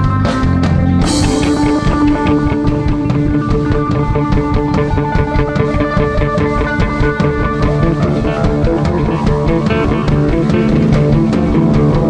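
Psychedelic rock music: electric guitar over bass and drum kit, with a cymbal crash about a second in.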